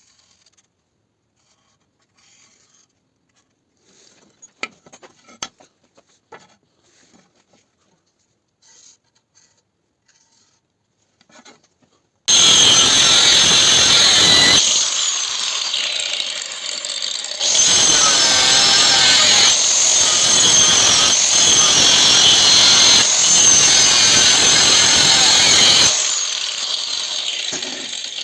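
Faint knocks and clicks of handling for about twelve seconds. Then a power tool grinding the steel of an old saw blade starts suddenly and runs loud with a high metallic screech. It drops in level briefly a couple of times and tails off near the end.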